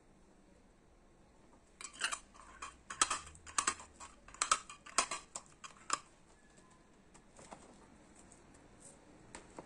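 Metal twist-off lid being screwed onto a glass pickle jar: a run of sharp clicks and scrapes starting about two seconds in and lasting about four seconds, then a few faint taps near the end.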